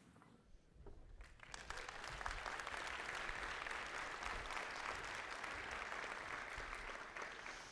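Audience applauding to welcome a speaker after her introduction. The clapping starts about a second in, holds steady, and tapers off near the end.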